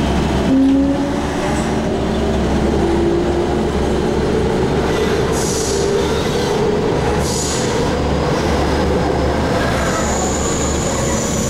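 MTR K-Train electric multiple unit running through a tunnel, heard from inside the carriage: a steady rumble of wheels on rail under a motor whine that climbs slowly in pitch as the train gathers speed. Brief high wheel squeals come about halfway through, and a thin high squeal sets in near the end.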